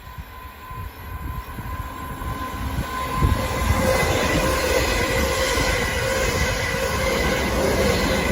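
Two coupled Class 444 Desiro electric multiple units passing at speed. The rushing rail noise builds over the first three seconds or so, then holds loud and steady as the train goes by, with a faint steady whine over it.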